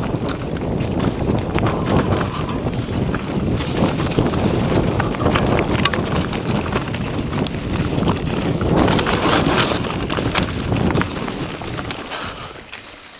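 Wind buffeting the camera microphone and mountain-bike tyres rumbling over a dirt trail on a fast descent, with frequent rattles and knocks from the bike over bumps. It fades over the last two seconds.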